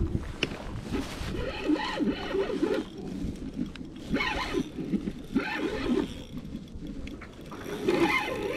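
Spinning reel being cranked against a hooked fish on a bent rod, sounding in short uneven bursts every second or two.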